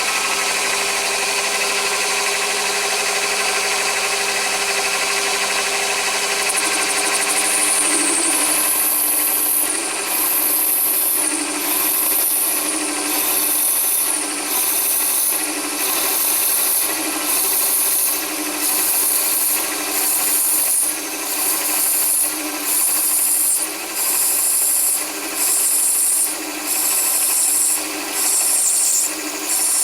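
A mini lathe is running with a steady hum from its motor and gears while an HSS saw-blade parting tool cuts into brass bar. From about eight seconds in, the cut comes as a high-pitched scraping squeal that repeats roughly every second and a half.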